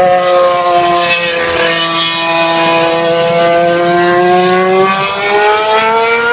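Formula 1 car engine at high revs: a loud, sustained high-pitched wail whose pitch sags slowly, then climbs again over several seconds.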